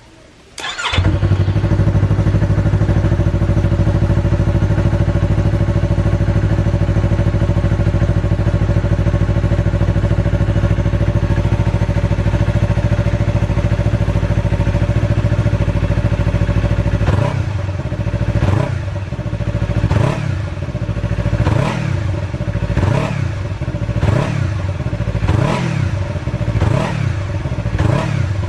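A 2019 Yamaha R3's 321 cc parallel-twin engine starts under a second in and idles steadily on its stock muffler with an Akrapovic pipe. From about two thirds of the way through, the throttle is blipped again and again, the revs rising and falling about every second and a half.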